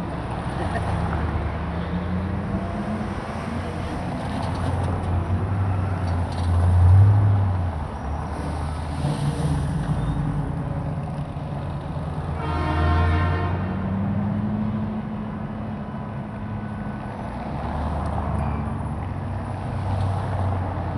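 A procession of Chevrolet Corvette V8 sports cars driving slowly past at low revs, their engines rumbling and swelling as each car comes close, loudest about seven seconds in. About halfway through, a car horn sounds once for about a second.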